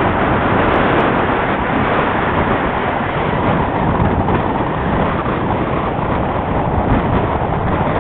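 Steady rush of air over the microphone of a camera carried on a radio-controlled glider in flight, with no motor heard.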